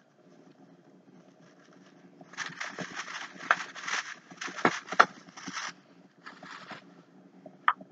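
Wrapping paper crinkling and rustling as an item is unwrapped by hand. It goes for about three seconds with sharp crackles, then comes a shorter rustle and a couple of small clicks near the end.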